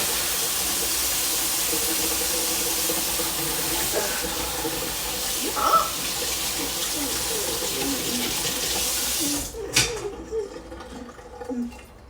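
Kitchen tap running steadily into the sink while tongs are washed; the water is shut off about nine seconds in, followed by a few light knocks.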